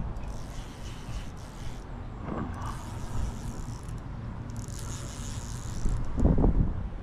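Wind buffeting the microphone: a steady low rumble that swells twice, about two and a half seconds in and again near the end, with stretches of high hiss between.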